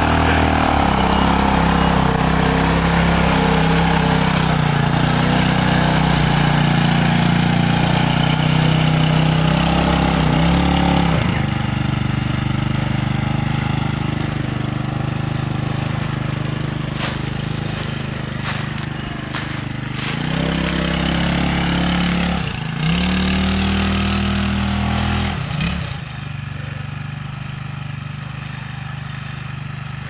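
Off-road go-kart buggy's engine running as it drives along a dirt trail, the revs dropping and picking up again several times. It grows quieter near the end as the kart moves off.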